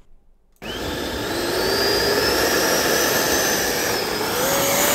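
3D-printed Yak-15 RC jet's electric ducted fan starts about half a second in and spools up: a steady rush of air with a whine that climbs in pitch as the throttle is opened.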